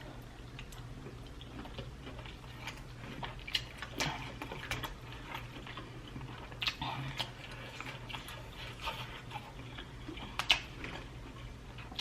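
Close-miked chewing and wet mouth clicks while eating prawns, a few sharper smacks scattered through, over a low steady hum.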